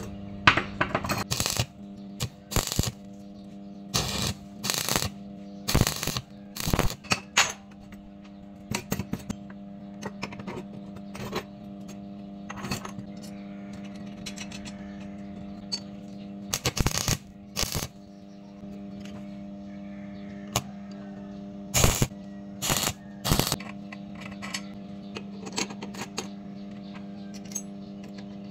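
Steel parts and bolts clinking and knocking against a steel tube and the metal workbench as they are handled and fitted together, in irregular clusters of sharp taps. A steady low hum sits underneath.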